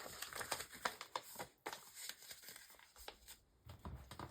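Paper planner inserts being handled: faint rustling of pages with scattered small taps and clicks.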